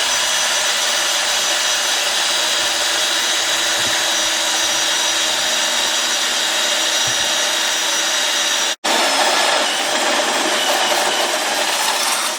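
Power drill running steadily at speed as it drills a hole through a fender, with a brief stop and restart about three-quarters of the way through.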